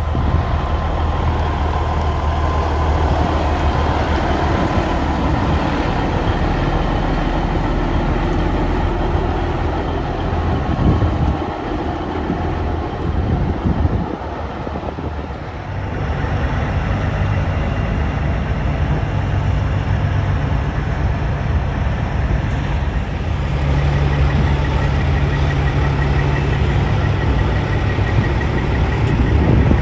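Heavy diesel trucks running, a steady low engine hum under broad traffic noise; the engine note shifts about halfway through.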